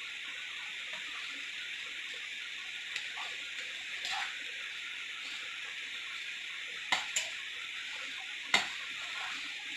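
A metal spoon stirring cooked biryani rice in a steel pot, giving a few sharp knocks against the pot: a pair about seven seconds in and the loudest one shortly after. A steady hiss runs underneath.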